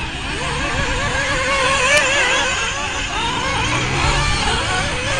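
Several nitro-engined 1/8-scale RC buggies racing, their small high-revving engines whining and rising and falling in pitch as they throttle on and off around the track.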